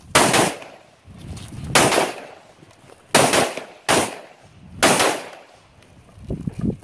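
Five AR-15 rifle shots (a Larue PredatAR), fired singly at irregular intervals of about one to one and a half seconds, each ringing out over the open range. A few lighter knocks follow near the end.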